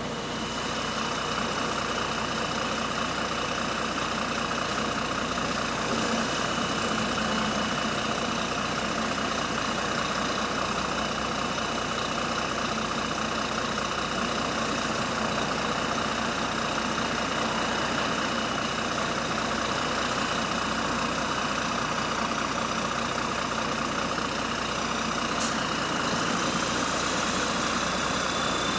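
A bus engine running steadily, with a faint steady high whine over it that rises slightly near the end. The bus has an exhaust leak.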